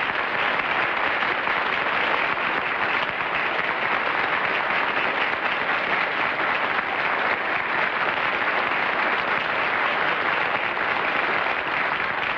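Studio audience applauding, a steady dense clapping that eases off a little near the end.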